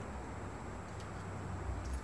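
Steady low background hum, with two faint light clicks as a knife and fingers work at the rubber seal of a bus door window, about a second in and again near the end.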